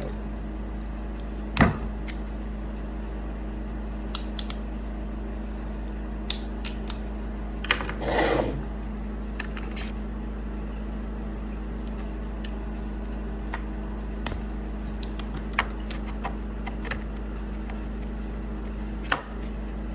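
Scattered light clicks and knocks of tools and metal parts being handled, over a steady hum, with a brief scraping rustle about eight seconds in.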